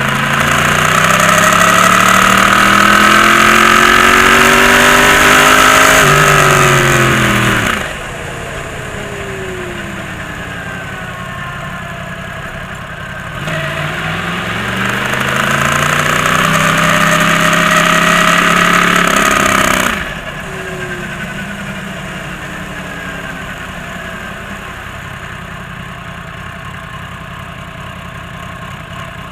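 Yamaha YZF-R1 inline-four engine pulling hard with its pitch climbing for several seconds, then the throttle is shut and the sound drops off sharply. This happens twice, with the engine running quieter and falling in pitch between and after.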